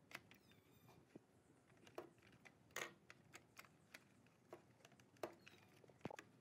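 Faint, scattered clicks and light taps of a CD player's metal mechanism frame being handled and fitted into a plastic stereo cabinet, about seven or eight irregular knocks with the loudest a little before and after the middle.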